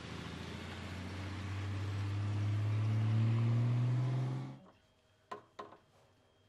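Four-wheel-drive vehicle's engine running as it drives along a dirt track, its pitch slowly rising as it grows louder, cut off suddenly about four and a half seconds in. Two short clicks follow.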